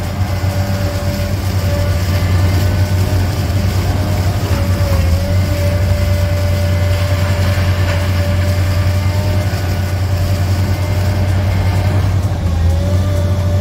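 Heavy demolition machinery running steadily: a tracked high-reach demolition excavator's diesel engine and hydraulics, a constant low drone with a steady whine over it that wavers briefly now and then.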